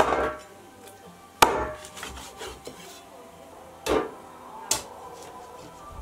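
Four sharp, separate blows on wood, each ringing briefly, spaced one to two and a half seconds apart, over faint background music.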